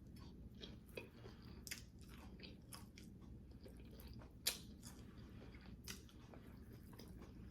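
Faint close-up chewing and crunching of a crunchy taco, with scattered small crackles and one sharper, louder crunch about halfway through.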